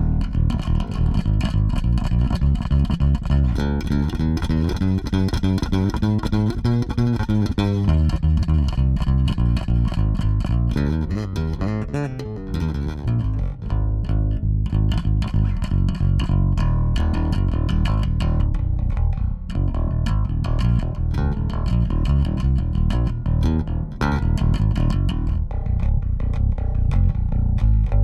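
Warwick Vampyre SN-5 five-string electric bass with MEC active pickups and preamp, played unaccompanied in a busy run of quick, sharply attacked notes with some sliding pitches around the middle.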